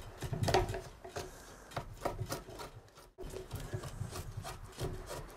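Draw knife shaving a wooden ox-yoke beam, the blade scraping off shavings in repeated short strokes, with a brief gap about three seconds in.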